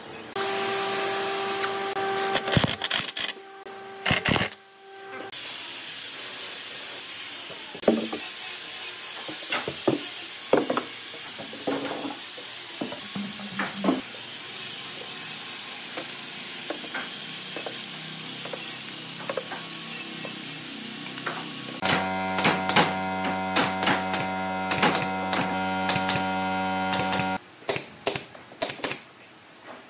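Power tools running in several separate stretches, some with a high whine, with knocks of wood being handled in between. Near the end comes a quick run of sharp shots from a pneumatic nail gun fastening wooden slats.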